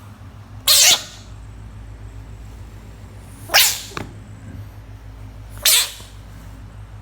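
A bullfrog giving three short, loud, hiss-like calls, about two and a half seconds apart.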